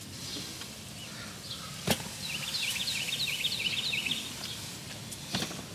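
A small bird twittering, a quick run of high chirps lasting about two seconds, with a single sharp knock just before it over a steady background hiss.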